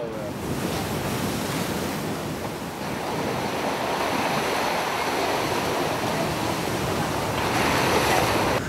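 Steady rush of wind and sea around a square-rigged tall ship under way, with wind buffeting the microphone; the rush grows a little brighter near the end.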